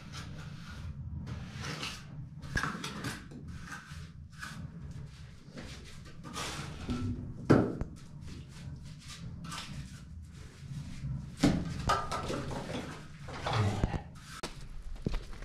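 Hand work on a concrete wall: irregular scraping and rubbing strokes with a few sharper knocks, echoing in a small bare concrete room.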